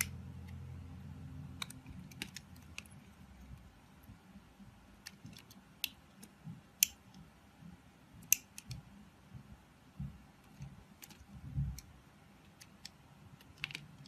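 Utility knife blade cutting and shaving a bar of translucent soap: irregular crisp clicks and scrapes as slivers break away, two much sharper than the rest near the middle, with a couple of soft low thumps later on. A low hum fades out in the first couple of seconds.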